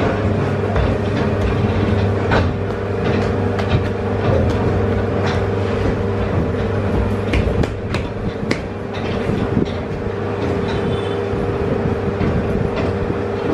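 Steady machine hum with two constant tones, a low one and a mid one, and scattered light clicks and knocks over it.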